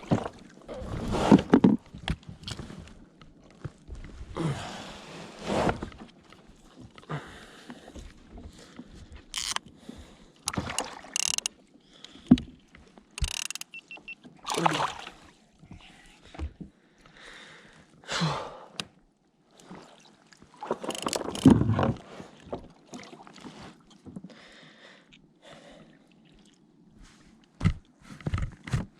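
Irregular bumps, rustles and splashes of handling aboard a fishing kayak while a small snapper is dealt with.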